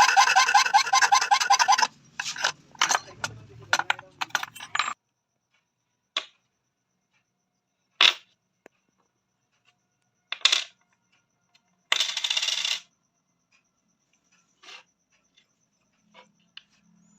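A hand file rasping on steel for about two seconds, then stopping, followed by scattered sharp metallic clicks and clinks, one short rattling clatter about twelve seconds in.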